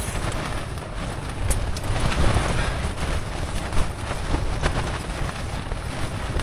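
Strong wind gusting against a tent and rumbling on the microphone, surging up and down, with a few faint clicks.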